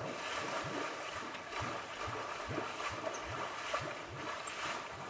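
A large upwelling of gas boiling up through river water, churning and splashing continuously with deep bubbling bloops about twice a second. The uploader takes it for swamp gas (methane) rising from deep down.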